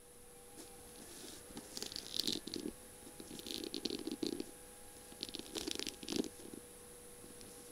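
Long fingernails tapping and scratching over the beaded, mirror-tiled barrel of a feather pen, in clusters of quick crackly taps: about two seconds in, again around three and a half to four seconds, and around six seconds. A faint steady hum runs underneath.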